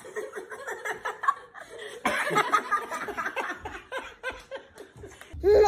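Laughter in quick, choppy chuckles. Near the end the sound cuts to a different clip with a low steady hum.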